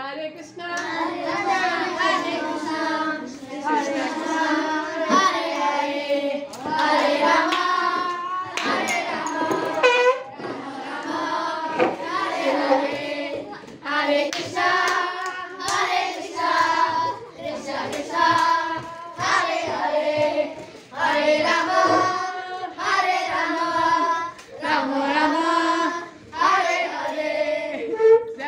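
A group of children singing together in short repeated phrases, with hand clapping.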